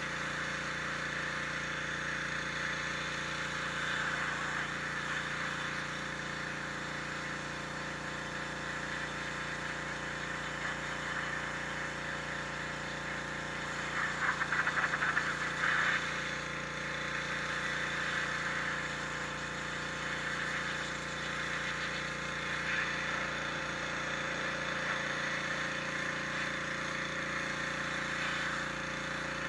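High-pressure washer running steadily, its water jet hissing against bluestone; the spray grows louder and crackles for a couple of seconds about halfway through.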